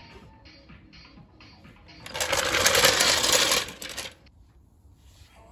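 Steel trolley jack pulled out from under the vehicle and rolled across tarmac: a loud rattling, scraping run lasting about two seconds, starting about two seconds in.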